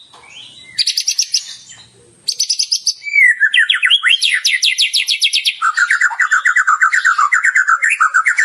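White-rumped shama (murai batu) in full song, working mimicked phrases of other birds into its song: short bursts of fast repeated high notes, then an unbroken rapid trill from about three seconds in that drops lower in pitch past the middle.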